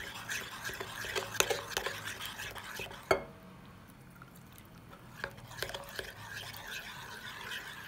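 Metal spoon stirring a thick yogurt and flour sauce in a porcelain bowl, with quick clicks and scrapes against the bowl. A sharp knock comes about three seconds in, the stirring pauses for about two seconds, then it starts again.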